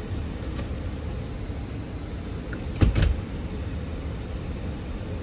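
Steady low rumble of the sleeper train running. Just under halfway through come two sharp clicks about a fifth of a second apart from the cabin door's lever handle and keycard lock.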